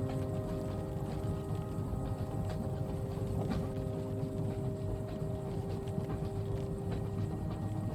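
Moving train carriage: a steady low rumble with faint clicks and knocks, a soft rain hiss, and several steady humming tones over it.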